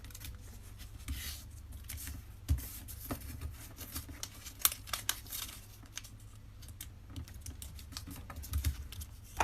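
Paper being folded and creased by hand: irregular small crinkles and sharp ticks.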